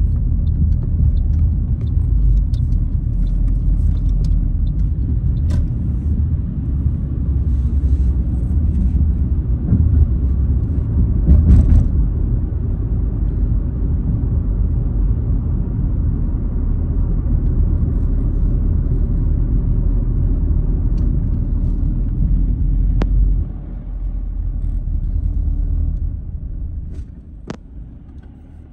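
Low rumble of a car's engine and tyre road noise heard from inside the cabin while driving. It quietens sharply about two-thirds of the way through and again near the end.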